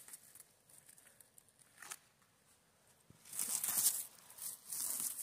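Hands rustling through dry grass and moss while picking mushrooms at ground level: a few faint crackles, then a louder scratchy rustle starting about three seconds in.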